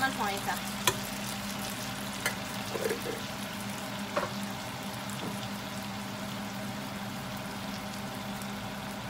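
Greens and bacon sizzling steadily in a frying pan during a stir-fry. A few sharp clicks of a metal spoon and spatula against the pan come in the first half.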